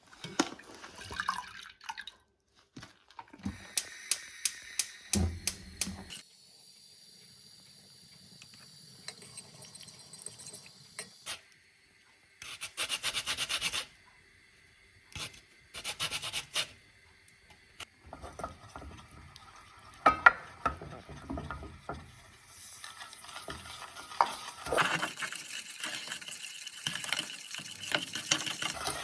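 Ingredients being mixed by hand in a bowl: a utensil stirring, scraping and tapping against the bowl in several separate bouts, with a quick run of even clicks a few seconds in and a longer stretch of steady stirring near the end.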